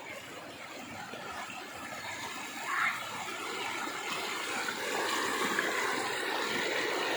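Floodwater rushing in a steady noisy wash. It briefly swells about three seconds in and grows somewhat louder for the last couple of seconds.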